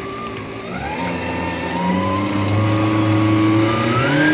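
Yamaha VX110 WaveRunner's four-stroke engine being throttled up under load, its pitch climbing steadily from about a second in and stepping up again near the end. The engine runs quiet for a personal watercraft, the load test after its clogged exhaust cooling passages were cleaned out.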